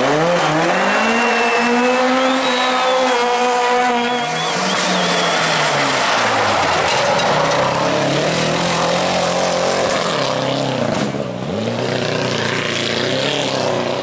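Rally cars at full throttle on a gravel stage, engines revving high; the pitch drops sharply and climbs again at a gear change near the start and again near the end. Gravel and dirt spray from the tyres under the engine noise.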